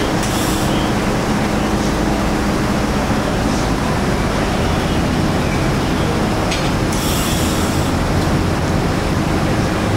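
Steady machine-shop din of a welding workshop: a constant hum and noise with no welding arc in this booth, broken by two short hisses, one about half a second in and one around seven seconds in.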